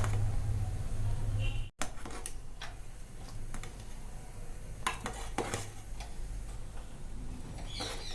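A spoon stirring milky jaggery tea in a pan, knocking and scraping against the pan a few times at irregular moments over a low steady hum. The sound cuts out for an instant a little under two seconds in.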